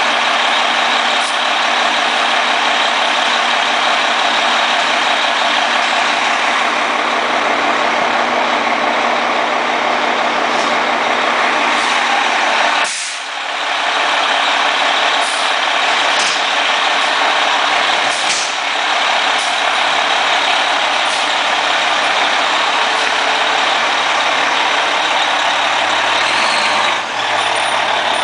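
Fire engine's diesel engine running loud and steady as the truck pulls slowly out of the station bay. Short air-brake hisses come about halfway through and again a few seconds later.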